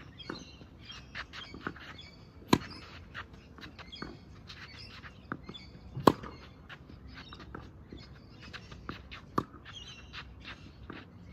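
Tennis ball hit back and forth in a rally: sharp racket strikes every three to four seconds, the loudest a forehand about six seconds in, with lighter knocks between. Birds chirp throughout.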